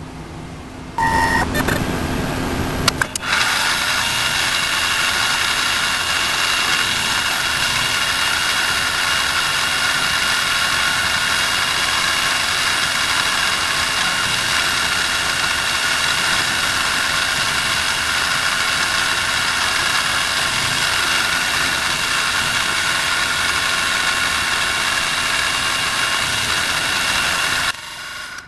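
CNC mini mill spindle running, its small end mill cutting into a brass disc: a steady whine of several tones over a hiss. It starts about a second in and cuts off sharply near the end.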